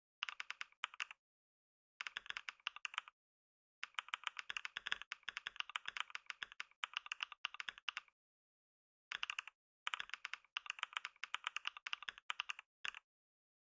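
Fast typing on a computer keyboard: rapid runs of key clicks in bursts of one to four seconds, broken by short pauses, with the longest run in the middle.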